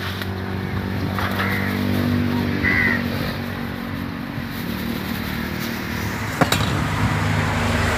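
A motor running steadily, with a sharp click about six and a half seconds in.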